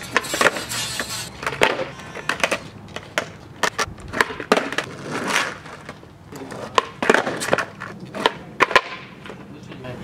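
Skateboard on asphalt: wheels rolling, with a string of sharp clacks as the board pops and lands on the road.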